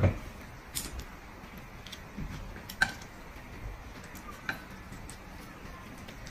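Scattered small clicks and taps of chopsticks against plates and tableware as food is picked up and laid on a pancake: a soft knock at the very start, then a few sharp clicks spread apart, the sharpest about three seconds in.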